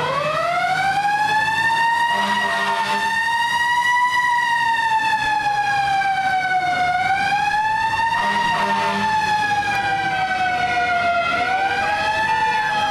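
Siren of a vintage American tractor-drawn aerial ladder fire truck. It winds up quickly at the start, then wails in a slow, uneven rise and fall as the truck drives past.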